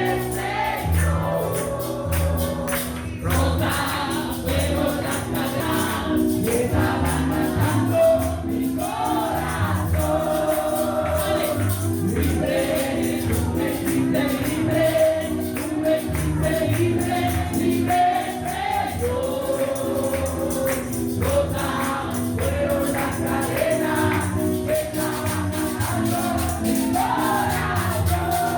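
Gospel worship music: a choir singing over a steady bass line, with a tambourine jingling throughout.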